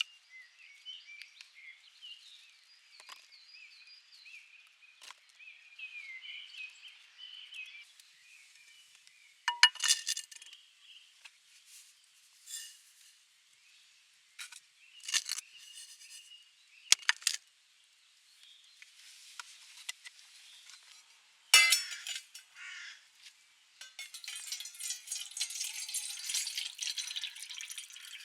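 Scattered sharp clinks and knocks of small hard objects, with birds singing in the first several seconds and a stretch of rustling noise near the end.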